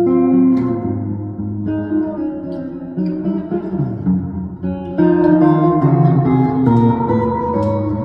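Solo semi-hollow-body electric guitar playing a slow jazz chord-melody, ringing chords with a melody on top, a new chord plucked every second or two.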